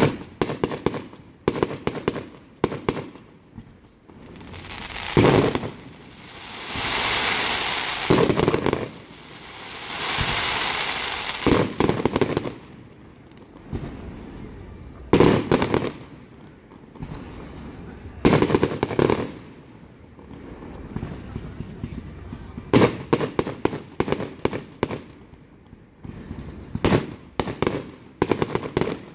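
Aerial fireworks shells bursting overhead: sharp bangs, some alone and some in quick clusters of reports, with two longer spells of hissing a few seconds long about a quarter and a third of the way in.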